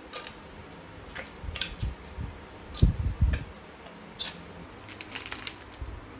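Metal spoon stirring olive oil into pesto paste in a clay mortar: scattered scrapes and clicks against the clay, with a few low knocks about three seconds in.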